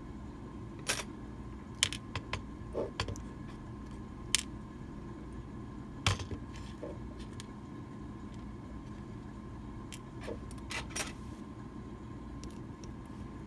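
Small metal clicks and taps, about a dozen at irregular intervals, as a disassembled Medeco lock cylinder and its pins and tools are handled and set down on a pin tray, over a faint steady hum.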